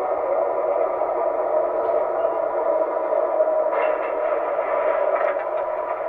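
Steady muffled hum from an MTH R21 model subway train's onboard sound system through its small speaker, with a few faint clicks about four to five seconds in.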